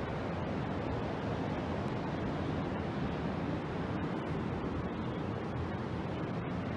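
Steady, even rushing noise that holds one level throughout, with no rise and fall of breaking waves.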